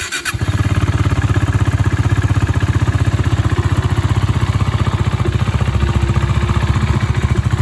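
KTM RC390's single-cylinder engine cold-starting: a brief burst of cranking right at the start, then it catches and settles into a steady, evenly pulsing idle. It sounds through a Barrel Exhaust Rouge end can with the dB killer fitted and the stock catalytic converter, and the engine is not yet at operating temperature.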